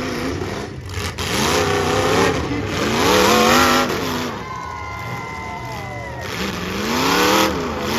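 Demolition derby cars' engines revving up and falling back again and again. A thin, high squeal that slides slightly down in pitch sounds for a second or two in the middle.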